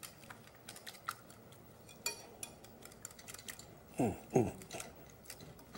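Wire whisk stirring a thin sauce in a glass bowl, with scattered light clinks of the wires against the glass. One sharper clink with a brief ring comes about two seconds in.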